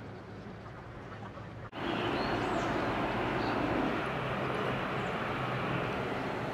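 A low, steady engine drone, as from the ferry, cuts off suddenly a little under two seconds in. A louder, even rushing outdoor noise follows, with a couple of faint bird chirps.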